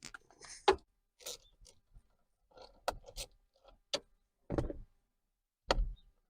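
A socket wrench working a steering-wheel airbag retaining bolt loose: irregular sharp clicks and knocks of the tool, with a couple of duller thumps in the second half.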